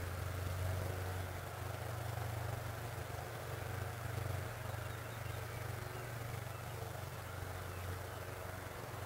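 Open-air countryside ambience beside a wheat field: a steady low rumble with a soft, even hiss above it, as wind moves through the wheat.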